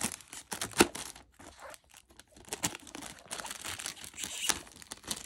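Clear plastic shrink wrap crinkling and tearing as it is peeled off a DVD case, in irregular crackles, with one sharp loud crackle about a second in.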